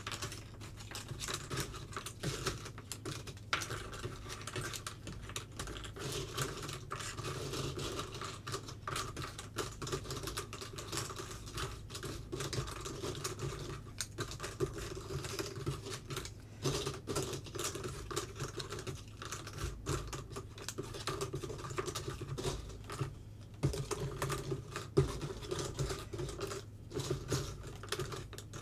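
Cardboard 3D jigsaw puzzle pieces being sorted by hand on a tabletop: a steady stream of small irregular clicks and rustles as pieces are picked out, slid and turned over. A low steady hum runs underneath.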